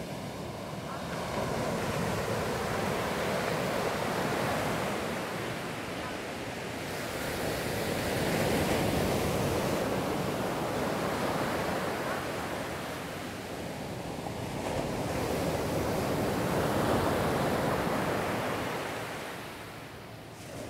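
Ocean surf: small waves breaking and washing up a sandy beach, the rush of water swelling and fading in three slow surges.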